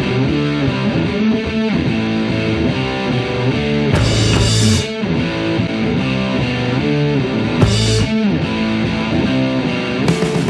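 Guitar-led rock music, with short bursts of bright hiss about four seconds in and again near eight seconds.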